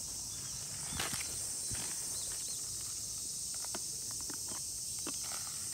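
Steady high-pitched chorus of field insects, with scattered light clicks and rustles from handling a seed packet and a push seeder's hopper.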